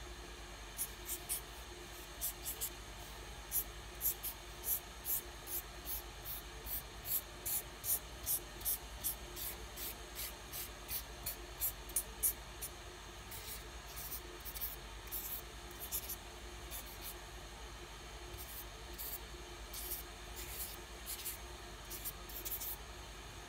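Felt-tip pen scratching on paper in short quick strokes, about two a second, as rays are drawn. About halfway through the strokes turn longer and more irregular, zigzag scribbling.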